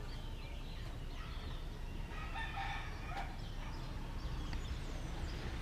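A rooster crowing once, about two seconds in, over small birds chirping and a low steady rumble.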